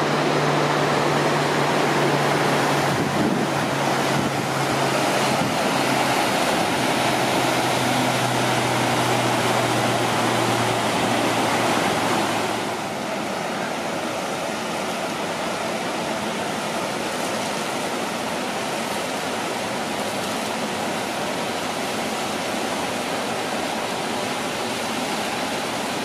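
Steady rushing water. In the first half it is the lake's outflow stream running over rocks, with a low steady hum underneath. About halfway the sound shifts and drops slightly to the Bøsdalafossur waterfall pouring off a sea cliff into surging ocean surf.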